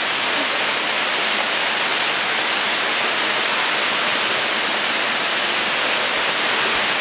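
Steady, unbroken rushing of a waterfall, an even hiss strongest in the upper range.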